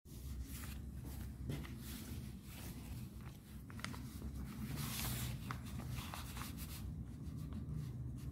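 Paper rustling and sliding as a loose ruled sheet is laid down and adjusted, with light scratches of a ballpoint pen on paper. A brief louder rustle comes about five seconds in, over a steady low hum.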